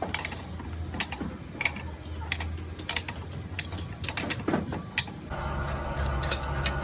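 Irregular sharp metal clicks and clinks of tools and parts being handled, then about five seconds in a workshop machine starts and runs with a steady hum.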